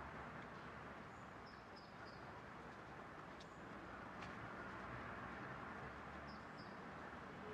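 Quiet rural outdoor ambience: a steady low hiss with faint, high bird chirps in two short clusters, about a second and a half in and again near the end, and a couple of faint ticks in between.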